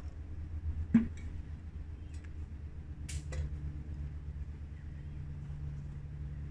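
Handling noises near a burning spirit stove, over a steady low rumble: a sharp knock about a second in, then a lighter click and a brief clink a little after three seconds, as the kettle and a metal fuel bottle are picked up and handled.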